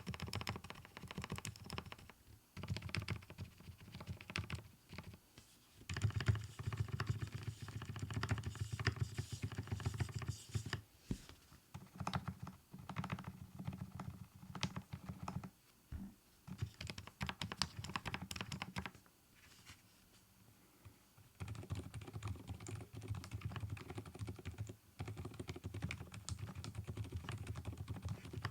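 Typing on an mStone Groove T tenkeyless keyboard with silent Milky switches, which are factory-lubed with a Krytox 105/205 mix and cushioned in the stem slider instead of silicone dampers: quick runs of soft keystrokes with short breaks, and a pause of about two seconds past the middle. The keystrokes are quiet, close to silent.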